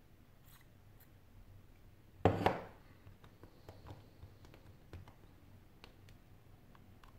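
A short spray from an aerosol can aimed at the edge of a phone, about two seconds in, lasting around half a second. Around it come faint clicks and rubbing as fingers handle the phone's glass back.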